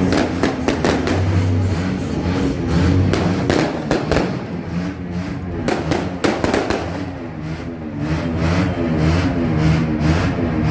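Fireworks going off: a rapid string of sharp bangs and crackles, thinning out after about seven seconds. Under them runs a steady low hum, and in the later part a wavering pitched tone.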